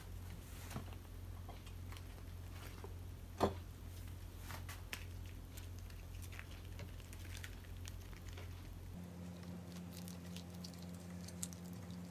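Wet rice paper being handled and peeled off a wooden board by hand: scattered faint taps and clicks, with one sharper click about three and a half seconds in, over a low steady hum.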